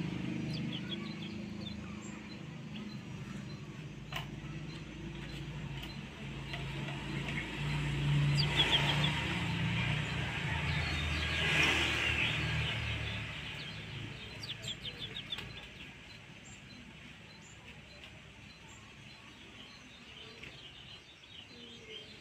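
Kecial kuning white-eyes giving short high chirps and quick twittering trills, with a clear run of rapid chirps a little past halfway. A passing motor vehicle rumbles in the background, loudest in the middle, then fades.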